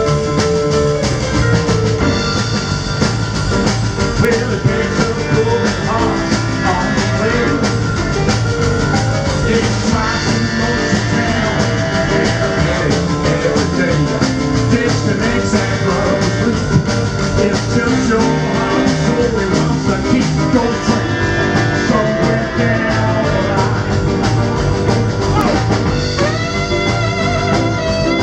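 Live band playing an upbeat rock and roll number on a Kurzweil SP88 stage piano, upright bass, drums and saxophones, with a male singer, over a steady beat.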